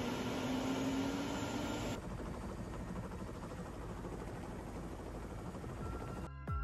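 Helicopter engine and rotor running on the pad, heard from inside the open cabin as a steady rush, with a faint whine rising slightly in pitch over the first two seconds. Music comes in just before the end.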